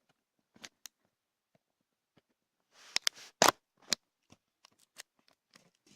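Cutting open a camcorder's retail box by hand: scattered clicks and scrapes of the blade and the packaging, with a short scratchy cut about three seconds in and a few sharp knocks just after it, the loudest about halfway through.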